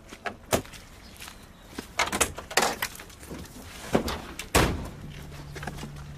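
Knocks and thumps of someone climbing into a Land Rover Series III cab, with the loudest, a door slam, about four and a half seconds in. A low steady hum starts just after.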